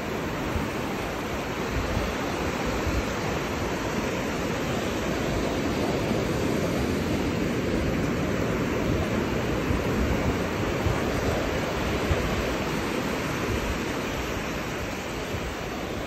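Shallow surf washing up and drawing back over a flat sand beach: a steady rushing hiss of water and foam, a little louder in the middle.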